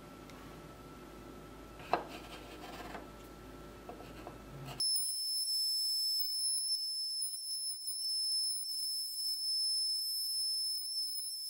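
CNC router spindle running with a steady, thin, high-pitched whine as its bit cuts grooves into a wooden board, starting suddenly about five seconds in. Before that, only faint workshop room sound with a light click.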